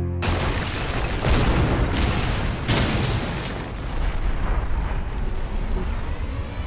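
Anime sound effect of a deep, rumbling boom with crashing noise. It swells louder several times between about one and three and a half seconds in, then settles into a lower rumble.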